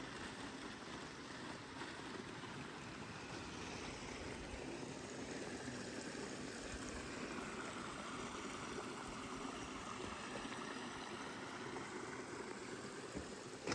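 Creek water flowing steadily, a soft continuous rush.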